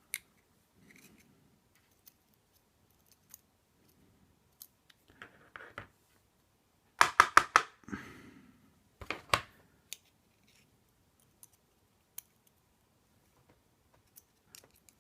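Small sharp clicks and taps of a disassembled padlock's pins and a hand tool being handled, with a quick run of four loud clicks about seven seconds in and a few more about two seconds later.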